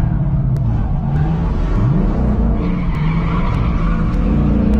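Tyres squealing as a pickup truck drifts on pavement, over an engine revving up and down, with a quick rise in revs about two seconds in. The squeal is strongest in the second half.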